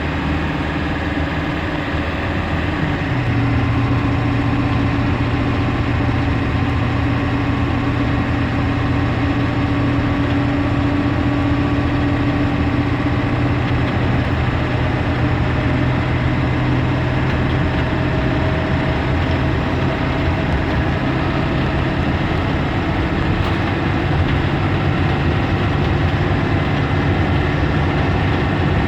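2004 Blue Bird school bus's diesel engine running with road noise, heard from inside the cabin while driving. The low engine note steps up about three seconds in and changes again near the end.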